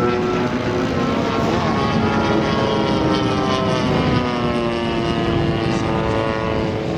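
Two-stroke 35cc EME petrol engine of a large RC sport aerobatic model plane in flight: a steady propeller and engine note whose pitch drifts slowly up and down.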